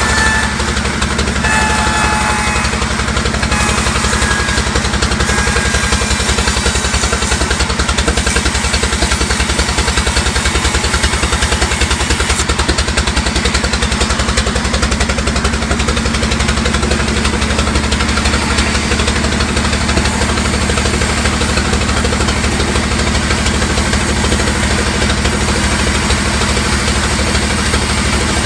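Sawmill engine running steadily with a fast, even pulse. A few short, high whistling tones sound in the first few seconds.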